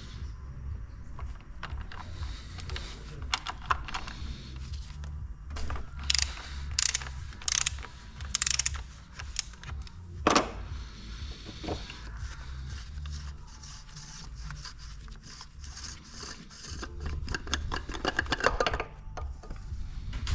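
Hand tools at work: runs of rapid ratchet-like clicking and a few sharp metal clacks, over a steady low hum.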